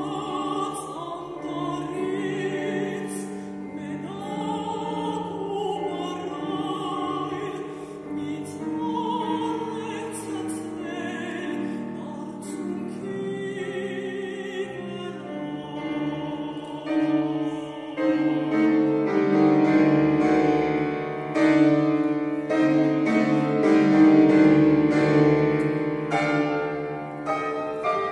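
A mezzo-soprano sings a classical art song with a wide vibrato, accompanied by a grand piano. The music grows fuller and louder after about the midpoint.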